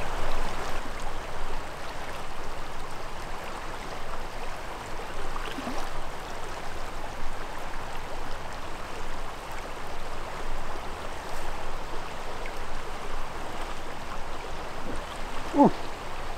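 Shallow river water flowing steadily, with a brief sound sliding down in pitch near the end.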